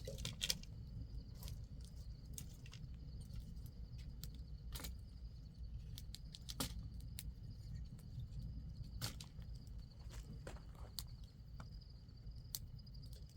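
Crickets chirping steadily over a low wind rumble, with irregular clicks and knocks scattered through.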